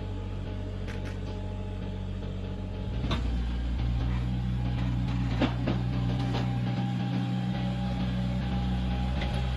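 Engine of a heavy construction machine running steadily, getting louder about three seconds in under load, with a few knocks and clicks over it.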